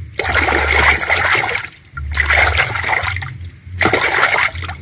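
Soapy water splashing and sloshing in a plastic tub as a hand swishes a plastic toy horse through it, in three bouts of a second or so each.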